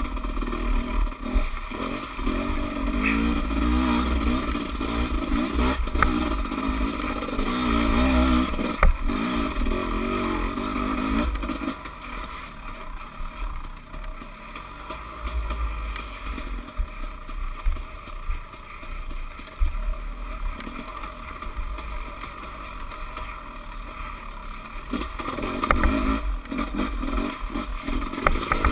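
Dirt bike engine revving up and down, with clatter and knocks from the bike over rough ground. The engine eases off to a quieter, lower run from about the middle and picks up again near the end.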